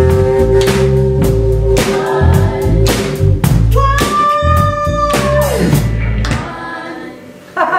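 Live rock band playing the final bars of a song: drum kit hits under group vocals holding long notes. A high sung note slides down about two-thirds of the way in, then the band dies away and the audience starts cheering right at the end.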